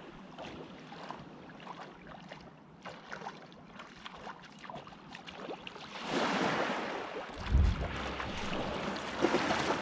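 Small waves lapping in the shallows, then splashing footsteps wading through ankle-deep water that grow louder about six seconds in, with a low thump about a second later.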